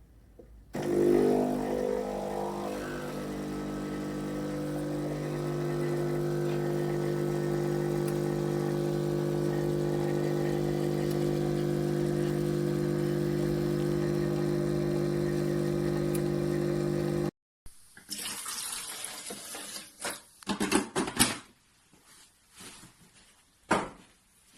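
Breville Bijou espresso machine's 15-bar pump starting up and running with a steady hum for about sixteen seconds, then cutting off suddenly. A few sharp clicks and knocks follow near the end.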